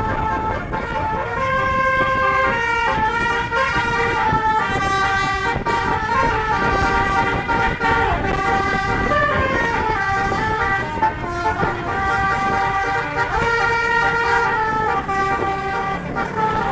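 A bus's telolet musical air-horn set, a multi-trumpet horn, playing a long melody: several notes sound together and change in quick steps, over a steady low rumble.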